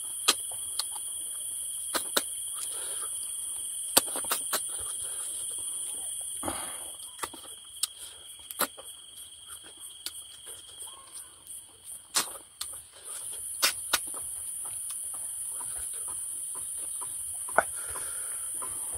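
A steady high-pitched insect chorus that fades for a few seconds mid-way and then returns, with scattered sharp clicks and smacks of eating.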